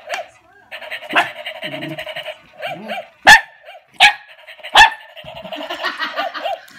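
Walking toy Dalmatian's mechanism whirring and clicking in a rapid, even rhythm, broken by three sharp, loud dog barks in quick succession about halfway through.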